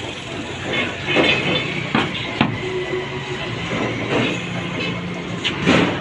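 Metal sand-casting flask halves clanking and knocking as the mold is pulled open and the halves are handled, with a few sharp knocks about two seconds in and again near the end, over a steady low hum.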